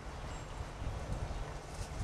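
Wind buffeting the camcorder microphone: an uneven, gusty low rumble over faint outdoor hiss, growing a little stronger toward the end.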